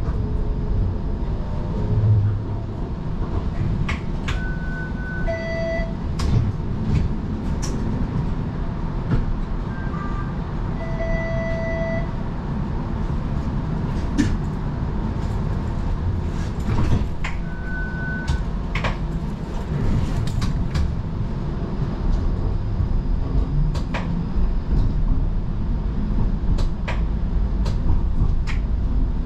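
Inside a Toronto streetcar: a steady low rumble with scattered clicks and knocks, and short electronic beeps several times, about five, ten to twelve, and eighteen seconds in.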